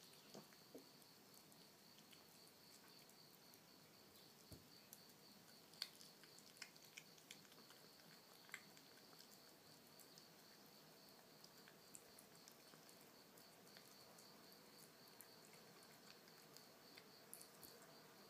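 Faint, scattered wet clicks and smacks of a kitten chewing canned cat food off a plate, thickest about six to nine seconds in, over a steady high-pitched tone.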